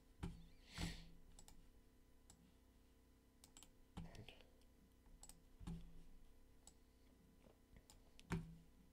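Faint, scattered clicking at a computer, a handful of soft knocks among the clicks, over near silence.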